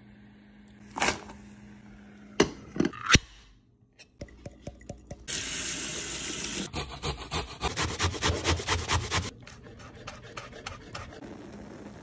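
A few sharp snaps of fresh green beans being broken in the first few seconds. Then tap water runs onto corn kernels in a metal mesh strainer for about four seconds.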